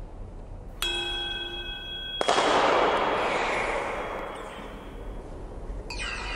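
Struck metal sound sculptures. About a second in, a metal piece rings with a clear clang of several tones. It is cut off by a louder, noisy metallic wash that fades over about three seconds, and near the end metal bells or chimes start ringing.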